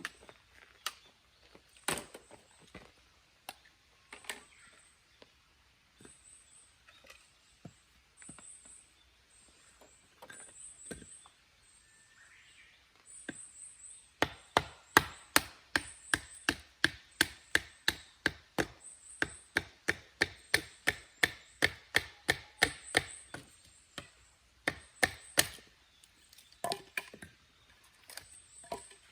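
Wood being chopped: a few scattered single chopping knocks, then from about halfway a fast run of sharp strikes, about three a second, that stops a few seconds before the end.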